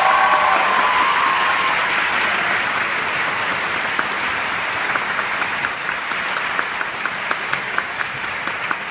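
Large audience applauding, with a few shouts of cheering at the start; the dense clapping thins out into scattered individual claps over the second half.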